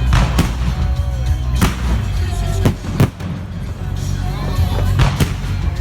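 A fireworks display with shells bursting in sharp bangs, about eight in a few seconds, some close together near the end, over steady loud music and crowd voices.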